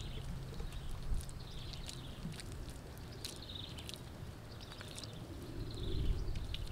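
Wet mud squelching and slapping as hands press and smooth it around a stove's upright pipe, with scattered small wet clicks. A few short high chirps sound over it.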